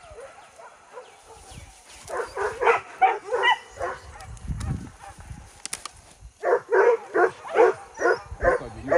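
Hunting dogs barking in rapid yelping series, in two bouts: one about two seconds in, and a louder one from about six and a half seconds on at roughly three barks a second. A brief low rumble comes midway.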